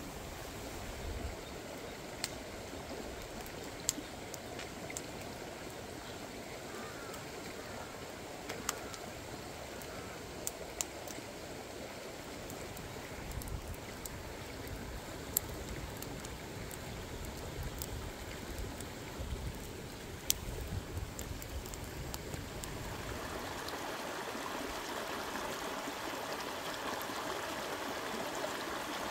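Wood fire crackling with scattered sharp pops as it burns around a green bamboo cooking tube, over the steady rush of a rocky stream. About 23 seconds in, the stream becomes louder and fuller.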